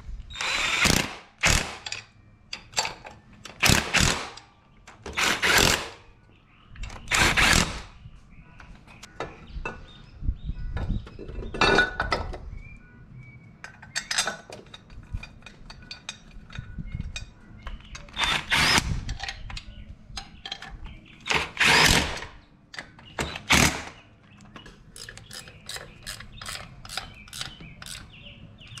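A ratchet driving in the flange bolts of an intake runner: a series of short, loud ratcheting runs, each about half a second to a second long, followed near the end by quicker, lighter clicking as the bolts are snugged down.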